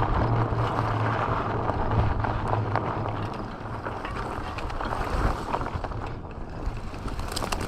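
Electric bike coasting with its mid-drive motor off: steady tyre rolling noise with a low hum and wind on the microphone, and scattered light clicks in the second half.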